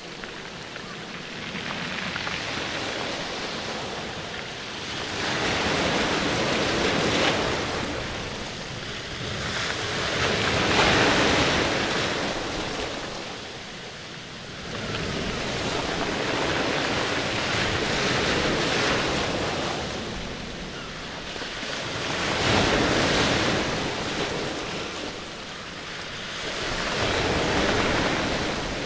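Rushing, splashing water from a reef aquarium's circulation, swelling and fading in slow surges every few seconds.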